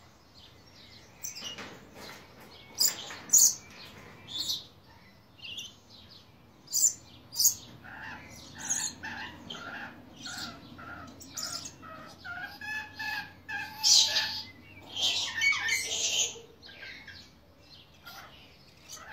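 Blue-streaked lory (Eos reticulata) calling. Short, shrill screeches come a few seconds apart at first, then turn into denser chattering calls with a longer pitched call about two-thirds of the way through.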